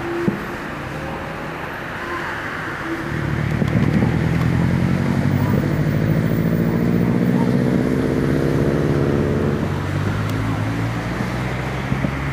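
A motor vehicle's engine runs past: it swells in about three seconds in, holds for several seconds and fades near the end, over a steady hum of road traffic.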